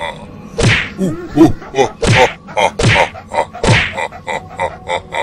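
A series of sharp whacks and slaps of blows landing, about one a second with smaller hits in between; each hit sweeps down from high to low.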